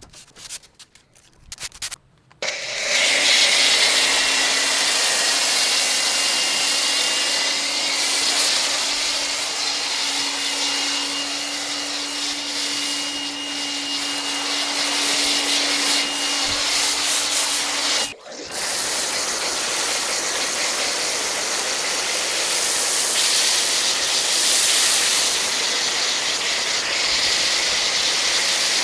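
Pressure washer (1800 psi) spraying water onto a lawn mower: a steady hiss with a motor hum under it. It starts a couple of seconds in after a few light clicks, cuts out briefly about two-thirds of the way through, then sprays again.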